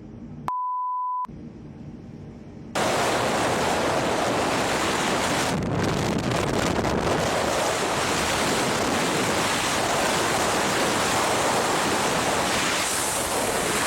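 A brief steady beep at one pitch, like a censor bleep, near the start; then from about three seconds in, a loud, steady rushing noise with no pitch or rhythm, like surf or heavy wind on the microphone.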